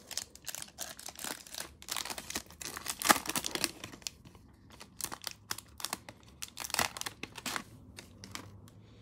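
Plastic wrapper of a 2019-20 NBA Hoops cello pack of trading cards being torn open and crinkled, with the stack of cards slid out and handled; the loudest crackle comes about three seconds in.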